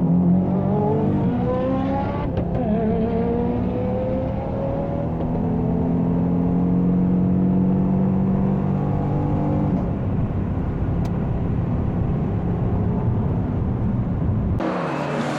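A car engine accelerating hard through the gears: its pitch climbs, drops at a gear change about two seconds in, climbs again, then holds steady before fading away. Near the end it cuts abruptly to a louder hissing noise.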